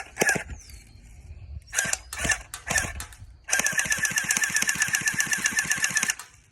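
Electric airsoft P90 firing: a few separate single shots, then a full-auto burst of about two and a half seconds, rapid even clicks over a steady gearbox whine, stopping abruptly.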